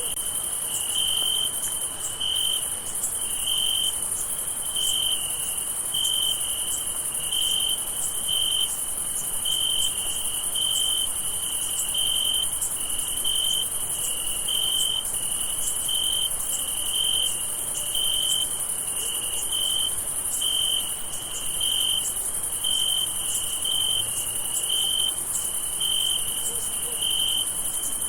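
Crickets chirping on a summer night: one chirp repeats at an even pace, a little faster than once a second, over a continuous high-pitched insect trill.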